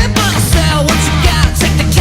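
Loud punk-style rock music: a full band with a singing voice over it.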